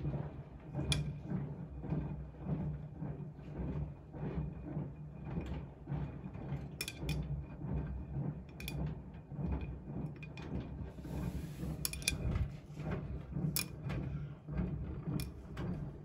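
Siemens front-loading washing machine mid-wash: the drum turning and tumbling wet laundry through soapy water over a steady motor hum, with an occasional sharp click every couple of seconds.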